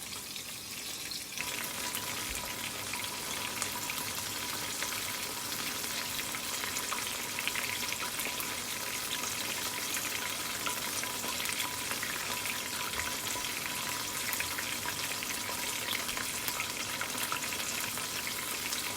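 Double-coated chicken pieces frying in hot oil: a steady, dense crackle and sizzle that gets louder about a second in.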